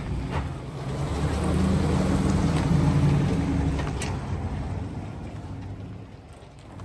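A motor vehicle driving past: a low engine drone grows louder over about two seconds, then fades away. A single sharp click comes about four seconds in.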